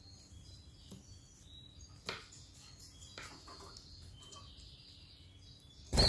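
Canaries chirping faintly in short high tweets, over a steady low hum. A sharp click comes about two seconds in, and a sudden loud burst at the very end.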